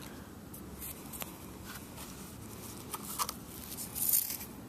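Faint scrapes, rustles and clicks of a coin being dug and sifted out of sand by hand, with a brief louder scratchy rustle about four seconds in.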